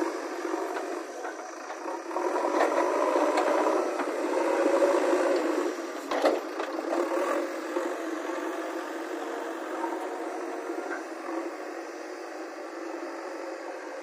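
Backhoe loader's diesel engine running with rattling and clanking, louder for the first few seconds, with a few sharp knocks about six seconds in.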